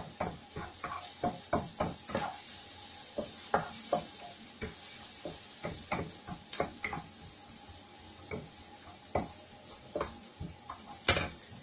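Wooden spatula knocking and scraping against a wok while garlic and onion are stirred as they sauté in oil, over a faint sizzle. The knocks come two or three a second at first, grow sparser after about seven seconds, and there is one louder knock near the end.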